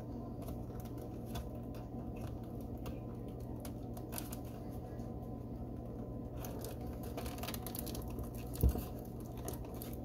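Plastic clicks and rustling as a refrigerator's plastic control and damper housing and its wiring are handled and fitted back into place, over a steady low hum. One dull thump about three-quarters of the way through is the loudest sound.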